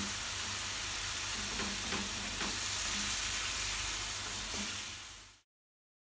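Spice paste sizzling as it fries in oil in a ceramic-coated frying pan, stirred with a wooden spatula, with a few faint scraping strokes. The sizzle fades and cuts to silence about five seconds in.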